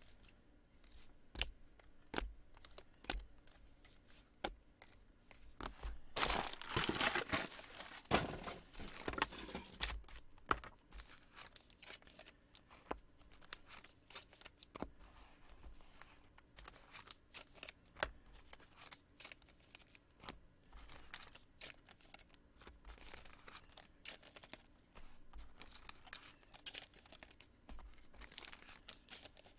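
Packaging being torn and crinkled for a few seconds, starting about six seconds in, with scattered light clicks and taps of cards and boxes being handled around it.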